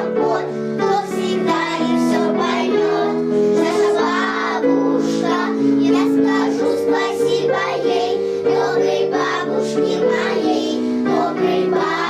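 A group of young children singing a song together over an instrumental backing track with steady held chords.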